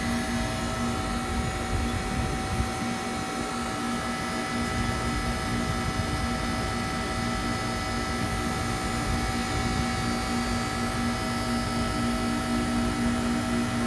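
2003 Carrier TECH2000 38YKC heat pump outdoor unit running steadily: a low hum with a few constant higher tones over an even rushing noise.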